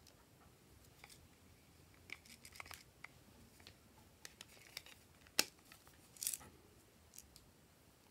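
Faint handling of a small tin box and loose sprinkles: scattered light ticks and taps, then one sharp click about five seconds in and a short rattle just after.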